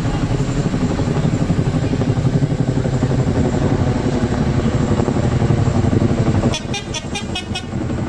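Tandem-rotor CH-47 Chinook helicopter flying overhead, its rotors beating steadily. About six and a half seconds in, the rotor sound drops back and a quick run of about six sharp, high ticks sounds.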